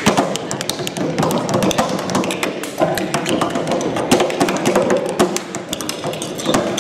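Dancers' shoes stamping and tapping on a wooden tabletop in a quick, busy rhythm, over backing music.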